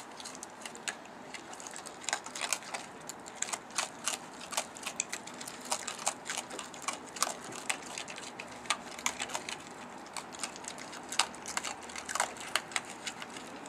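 Raccoons crunching dry kibble: dense, irregular crisp clicks and crackles of chewing, several a second, with no steady rhythm.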